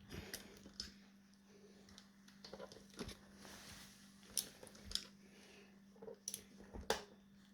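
Scattered small metal clicks and taps of a hand tool on the screws that clamp an electric scooter's split wheel rim, as they are tightened, over a faint steady hum.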